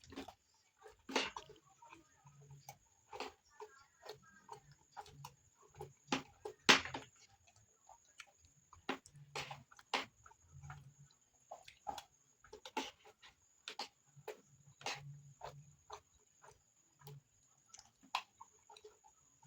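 Close-up eating sounds of a person chewing rice and bean stew: irregular wet mouth clicks and smacks with soft low chewing thuds, the sharpest click about a third of the way in. A faint steady high whine sits underneath.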